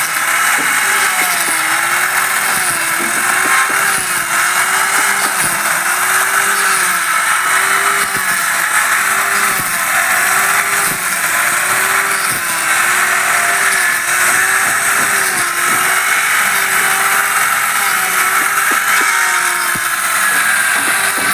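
Handheld electric circular saw ripping a wooden plank lengthwise. The motor runs loudly and steadily under the hiss of the blade in the wood, its pitch sagging and recovering about every second as the saw is fed along.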